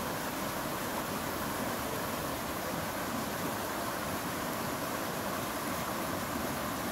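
Steady rush of a stream riffle, water running fast over rocks.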